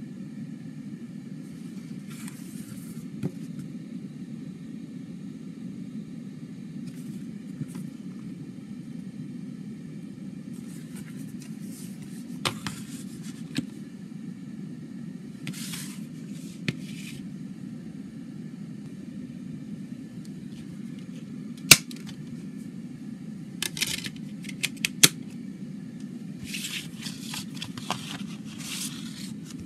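Hands handling a cardboard CD digipak: scattered rustles and scrapes of card and paper, with a few sharp knocks, the loudest about two-thirds of the way through, over a steady low background hum.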